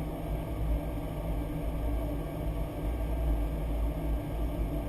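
Steady low rumble of flight deck noise in a Boeing 737-800 cockpit: engine and airflow noise, even throughout.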